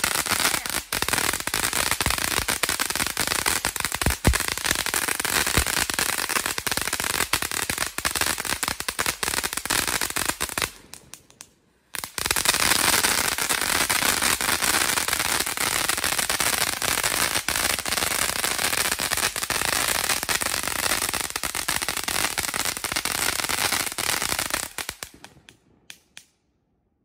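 TNT Retro Finale Fountain, a ground fountain firework, burning with rapid, continuous crackling. The crackle stops for about a second near the middle, starts again, and dies away with a few last pops near the end.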